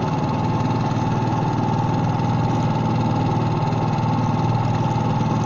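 Tohatsu 4 hp four-stroke outboard, a single-cylinder motor, running steadily and pushing a square-back canoe along, with a steady higher whine above the engine note.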